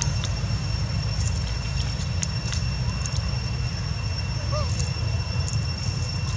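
Steady low background rumble with a steady high whine above it, broken by a few faint ticks and one short faint squeak about four and a half seconds in.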